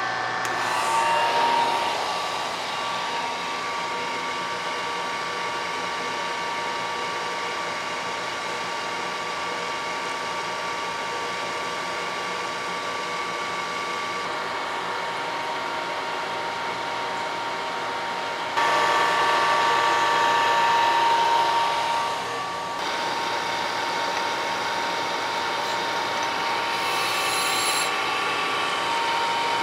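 Brown & Sharpe surface grinder running: a steady motor and spindle whir with a high whine, growing louder for about four seconds a little past the middle.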